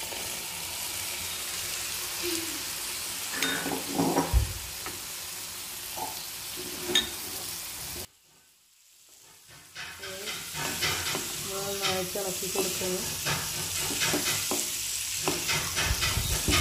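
Pickle gravy sizzling in a non-stick pan as a wooden spatula stirs fried fish into it, with scattered scrapes and knocks of the spatula on the pan. The sound cuts out for about two seconds just past the middle, then resumes.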